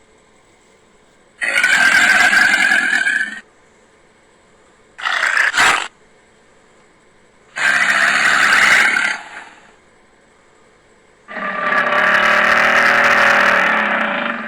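Crocodile calls, four in a row: a call of about two seconds, a short half-second one, another of about two seconds, and a longer one near the end, with faint hiss between them.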